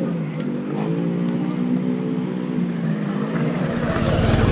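Motorcycle engine running under load on rough ground, its pitch rising and falling with the throttle, then getting louder with a deeper note near the end as it revs harder.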